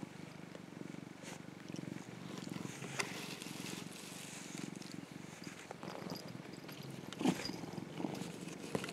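Domestic cat purring steadily while being stroked, a continuous low, fast-pulsing rumble. A few brief knocks from handling break in, the loudest about seven seconds in.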